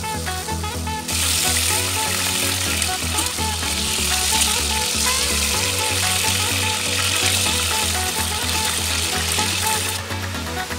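Thin slices of marinated beef sirloin sizzling loudly in hot oil in a pan, a steady hiss that starts abruptly about a second in and drops away near the end. Background music plays underneath.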